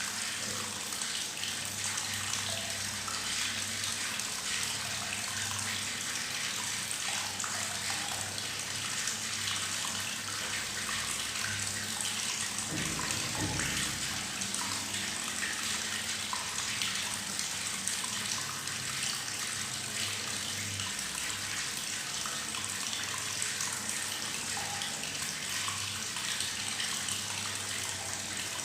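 Tap water running into a bathtub, gurgling and bubbling steadily. About halfway through there is a brief low rumble.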